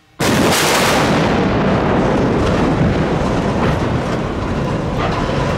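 Explosive charges fire in a sudden loud blast, and the steel girder spans of a concrete-decked bridge come down in a long, loud crashing rumble with a few sharper cracks through it.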